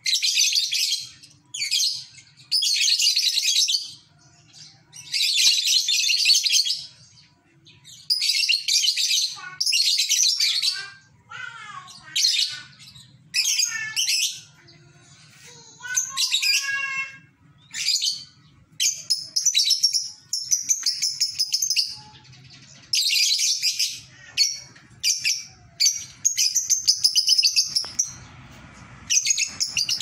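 Caged lovebird doing its ngekek: bursts of fast, shrill chattering, each a second or two long, repeated with short pauses. Some shorter gliding chirps come in between around the middle.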